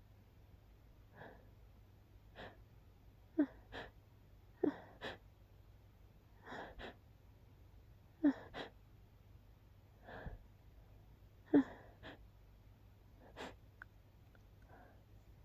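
A person's stifled sneezes, held in to keep quiet: a string of about fifteen short, muffled bursts, many coming in quick pairs about half a second apart, every second or two.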